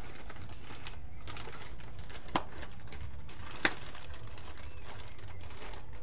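A dove cooing in the background over a steady low hum, with two sharp knocks about a second apart near the middle as goods are handled.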